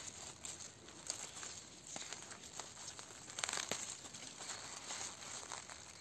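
Dry fallen leaves and twigs crackling and rustling under a hand parting wild garlic (ramsons) plants, with a denser burst of crackling about three and a half seconds in.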